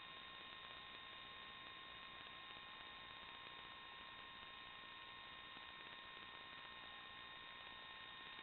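Near silence: a faint, steady electronic hiss with a few constant high whining tones, the noise floor of an analog FPV video recording.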